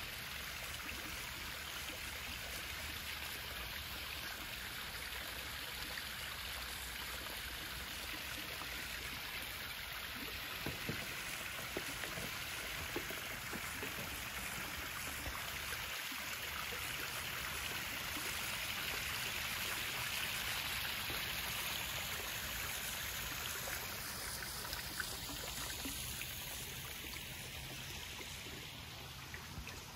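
Small backyard pond waterfall splashing steadily over rocks into a koi pond. It grows a little louder toward the middle and fades near the end.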